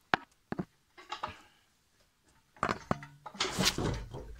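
A steel pry bar knocking and scraping against metal on the engine: one sharp knock near the start, a few lighter knocks just after, then longer scraping in the second half with a brief metallic ring.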